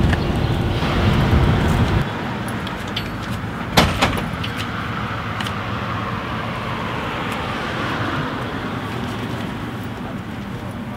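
City street traffic: a low vehicle rumble that cuts off suddenly about two seconds in, then steady street noise with one sharp click just before four seconds.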